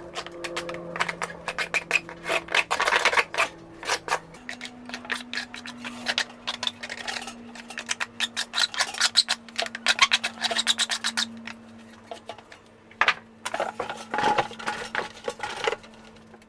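Irregular scraping and rubbing with rapid clicks, coming in bursts with short pauses, over a low held tone that shifts pitch about four seconds in.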